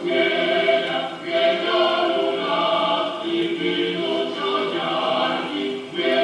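Choir singing the tune for a Lithuanian folk dance, the melody going in phrases with brief breaks about a second in and near the end.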